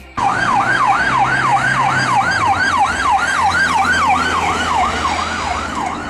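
Ambulance siren sounding a fast yelp, about three rising-and-falling sweeps a second, over road noise. It comes in suddenly just after the start.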